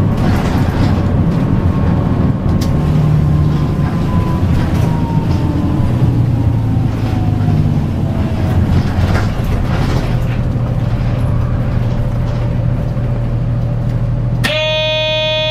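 City bus's diesel engine and drivetrain running, heard from inside the cabin, with a whine that slides down in pitch as the bus slows toward a red light. About a second before the end, a steady buzzy tone sounds for about a second.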